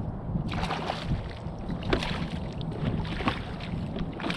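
Water splashing and sloshing irregularly around a fishing kayak, with wind on the microphone.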